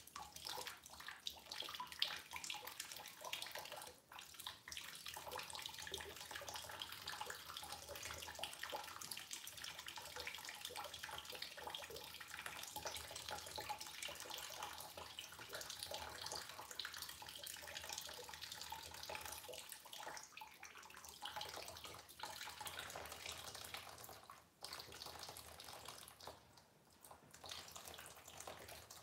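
Water running and splashing steadily, drawn out of a reef aquarium through a siphon hose. The flow falters briefly a couple of times near the end.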